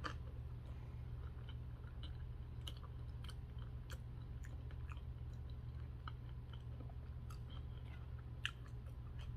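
A person chewing food close to the microphone, with small wet mouth clicks and crunches scattered throughout, over a steady low hum.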